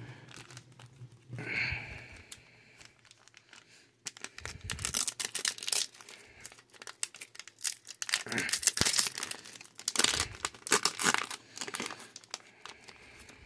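Yu-Gi-Oh booster packs being torn open, the wrappers ripping and crinkling in several bursts.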